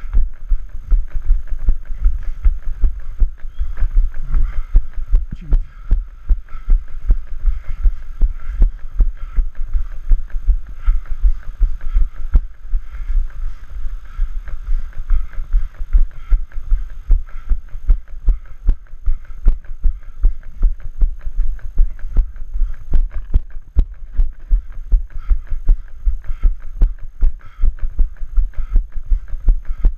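A running person's footfalls: a steady rhythm of low, heavy thuds, about three a second, jolting the camera carried by the runner.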